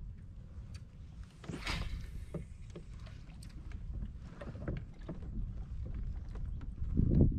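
Small-boat sounds on the water: low lapping against a plastic kayak hull, with scattered small clicks and knocks. There is a brief hiss about one and a half seconds in, and a louder low rush starts near the end.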